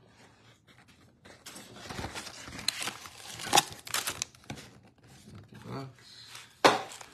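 A cardboard trading-card box is opened and foil card packs are handled, giving scattered rustling, scraping and crinkling. A sharp knock near the end is the loudest sound.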